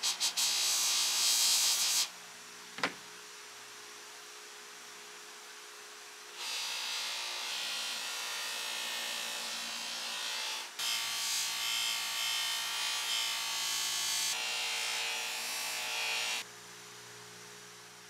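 DeWalt bench grinder running with a steady hum while a rusted steel pistol part is pressed against its spinning wheel, giving a loud scratchy hiss as the rust is abraded off. The hiss comes in a short stretch at the start and a long one from about six seconds in to near the end, with a single sharp tick about three seconds in.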